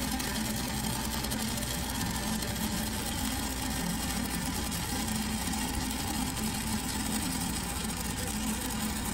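Stick-welding arc of a 5/32-inch E6010 electrode burning along a steel pipe joint: a steady crackling hiss with a low hum underneath.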